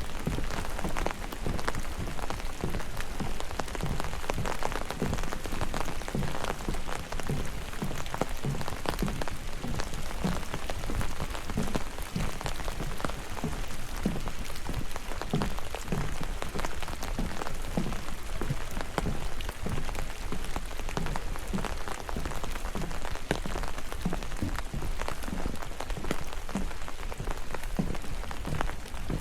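Steady rain falling in a forest, with many separate drops pattering throughout.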